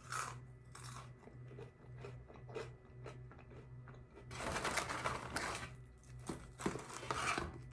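A person chewing and crunching on a crispy french fry close to the microphone, with scattered crackles and two denser stretches of crunching in the second half.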